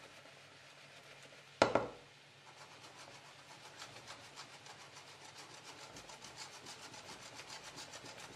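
Non-stick frying pan shaken back and forth on a glass-ceramic hob with a potato omelette sliding in it, scraping in a quick steady rhythm. One loud knock sounds about one and a half seconds in.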